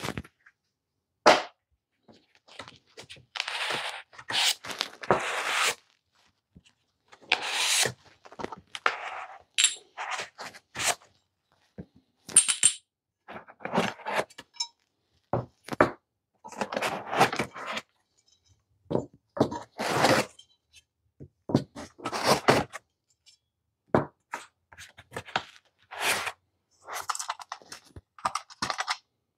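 Parts being unpacked from a foam-lined cardboard box: pieces pulled out of the foam insert and set down on a table, making irregular scrapes, rustles and thunks. A sharp knock about a second in is the loudest sound.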